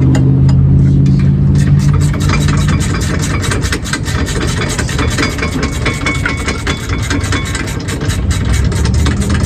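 Impact wrench running the caliper bracket bolts in on a rear brake assembly. It spins with a steady hum at first, then hammers in a fast, even rattle of blows as the bolts seat.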